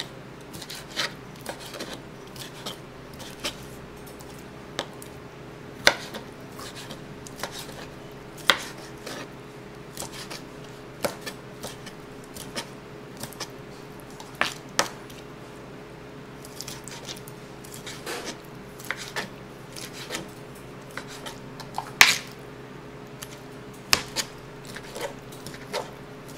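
Kitchen knife chopping raw shrimp on a plastic cutting board: irregular, sharp knocks of the blade against the board, a second or two apart. A steady low hum runs underneath.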